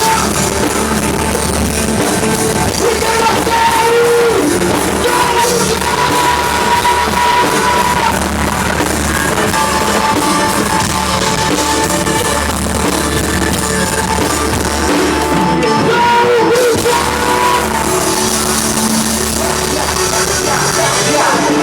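Live band music with a singer, loud and continuous, with held melody notes over a full band.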